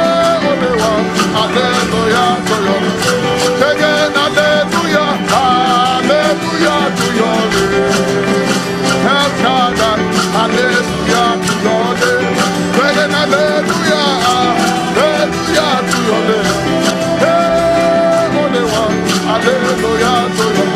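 Instrumental gospel band music: a plucked lead guitar plays a bending melody over a steady beat and sustained bass.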